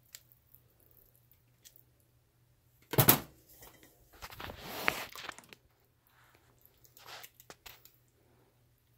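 A sharp knock about three seconds in, as a container is set down on the stainless steel counter, followed by a second or so of handling noise and a few small clicks later; otherwise quiet over a faint low hum, the thick soap batter pouring into the mold without a sound.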